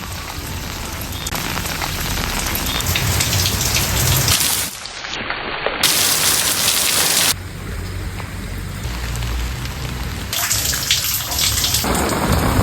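Steady heavy rain pattering on surfaces, made up of several shots joined with abrupt jumps in loudness and tone, about five seconds in and again near the middle and end.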